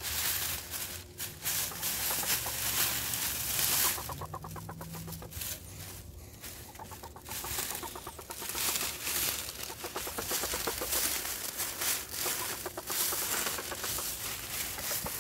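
Domestic hen scratching and burrowing in a pile of dry oak leaves, the leaves rustling and crackling all through, with the hen clucking low as she digs.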